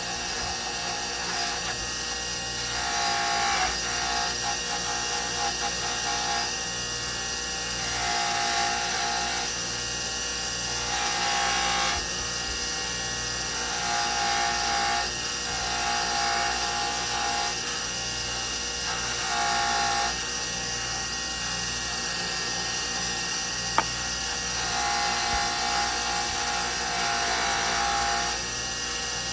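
An electric polishing tool runs steadily while buffing a brass French horn tuning slide with polishing compound. A whining tone comes and goes every few seconds over the motor's hum, and there is one sharp click near the end.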